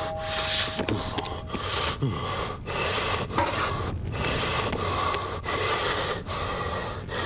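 A person breathing hard in and out through a snorkel tube, short raspy breaths following one another with brief gaps.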